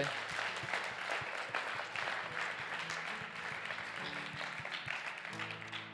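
Congregation applauding and clapping, fading away near the end, with an acoustic guitar playing soft sustained chords underneath.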